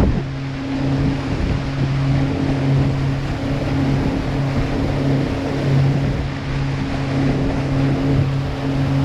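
A river water-taxi boat's engine running with a steady low hum, over a constant wash of water and wind noise.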